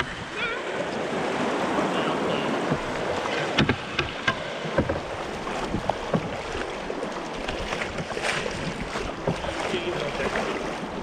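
Rushing river water around an open canoe running a riffle, with paddle strokes splashing and a few sharp knocks about four to five seconds in and again near eight seconds.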